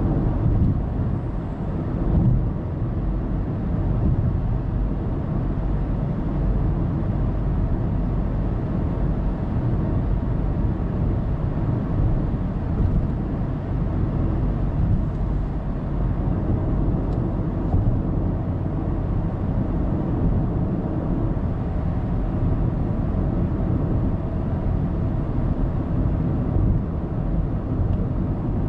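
Steady low road rumble of a car cruising on an expressway, heard from inside the cabin: tyre and engine noise at an even level.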